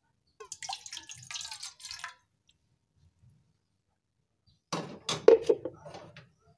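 About 200 ml of water poured into a cooking pot, splashing and dripping in two spells: a softer one about half a second in and a louder one near the end.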